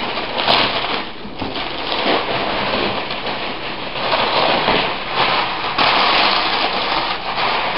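Cardboard box and its packaging being opened and handled: a dense crackling, rustling and scraping with many small clicks, louder in several surges.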